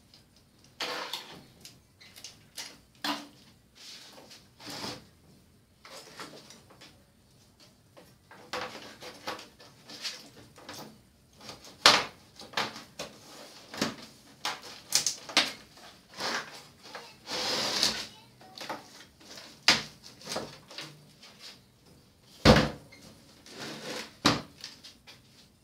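Irregular clicks, rustles and knocks of a disassembled LED TV panel being handled: plastic sheets and frames lifted, shifted and set down on a wooden table. There is a sharp knock about twelve seconds in and another near the end.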